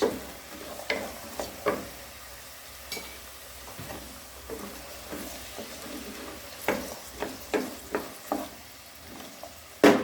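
Onion, carrots and peas frying in olive oil, sizzling steadily, while a spoon stirs them and knocks and scrapes against the pan a few times, more often in the second half.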